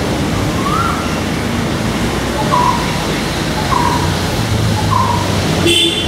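Brown-headed barbet calling: four short notes a little over a second apart, over steady road-traffic noise. A brief higher-pitched sound comes just before the end.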